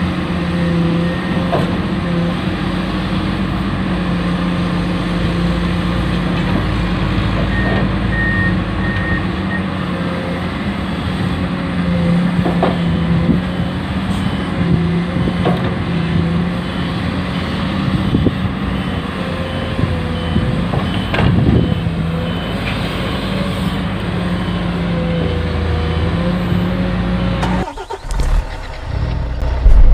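Toy RC construction vehicles running, with a steady engine-like hum. Short runs of evenly spaced high beeps, like a reversing alarm, come around the middle.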